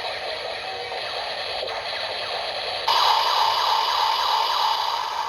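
Electronic sound effects and music played through the small speaker of a Shining Assault Hopper Progrise Key toy. A louder section starts suddenly about three seconds in.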